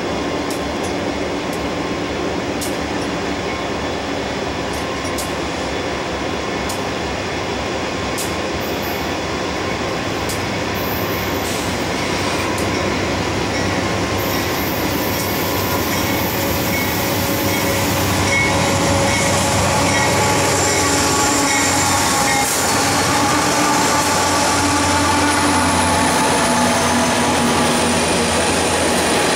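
Norfolk Southern freight train passing close by: a steady rumble that grows louder about two-thirds of the way in as the cars roll past, with thin wheel squeals.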